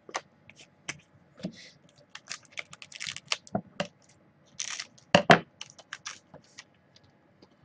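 Trading cards being handled by hand: a run of quick clicks, flicks and rustles of card stock, loudest a little after five seconds in.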